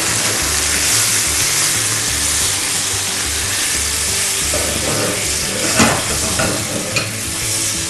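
Onion and tomato-juice sauce sizzling in a frying pan, stirred with a silicone spatula. There are two short clicks about six and seven seconds in.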